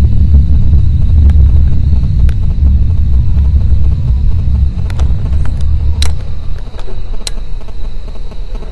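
Loud, deep continuous rumble that eases off about six and a half seconds in, with a few sharp clicks over it. The investigators hear it as the mysterious 'estruendo', a continuous roar that they liken to an aircraft turbine but do not believe is one.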